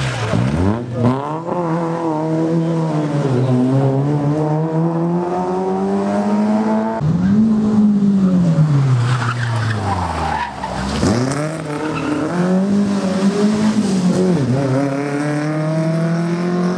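Rally car engines being driven hard: the pitch climbs through the revs, drops at each gear change or lift-off and climbs again, with the sharpest drop about seven to ten seconds in and a fresh rise near the end as the next car comes through.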